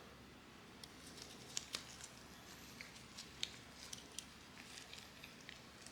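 Faint, scattered light clicks and taps of small parts and tools being handled during hands-on assembly work.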